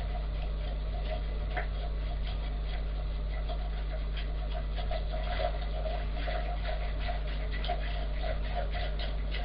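A steady low hum under faint, irregular clicks and scrapes of a spoon stirring in an enamel pot on a gas stove.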